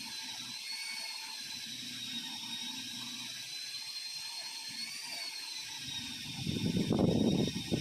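Electric power tool motor running with a steady high whine that wavers slightly in pitch. A louder, rough grinding noise comes in near the end, as if the tool is biting into material under load.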